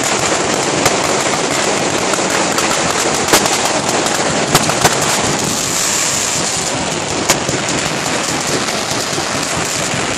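Colour mascletà fireworks: a dense, unbroken crackle of firecrackers and rising rockets, with a few sharp bangs standing out, about a second in, three times around the middle and once past seven seconds.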